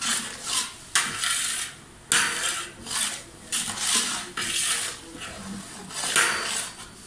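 Metal ladle scraping and knocking against the sides and bottom of a large aluminium pot as sliced onions and paste are stirred, in repeated strokes about one or two a second.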